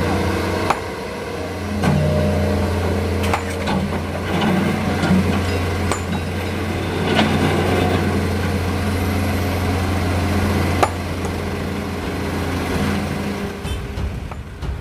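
Heavy diesel machinery engine running with a steady low hum, with a scattering of sharp knocks and clanks, as of an excavator loading sand into a truck.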